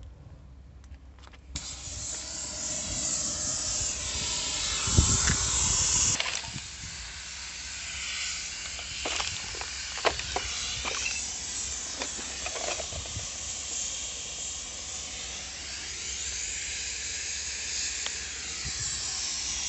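A steady, strong hiss that starts suddenly about a second and a half in and holds on unchanged, with low rumbling under it for the first few seconds and a few sharp clicks around the middle.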